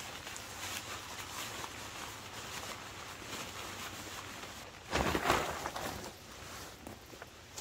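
Fabric of a CampPal one-person tent rustling and crinkling as it is pulled out of its stuff sack, with a louder swish about five seconds in as the tent body is shaken out and spread on the ground.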